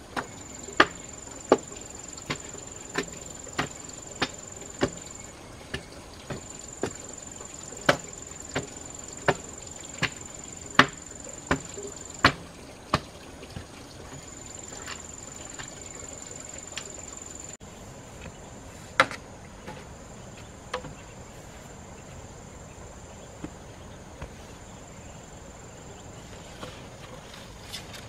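Repeated sharp strikes of a hand tool, about one every two-thirds of a second, thinning out to a few scattered knocks after about 13 seconds. A high, steady insect buzz starts and stops behind them.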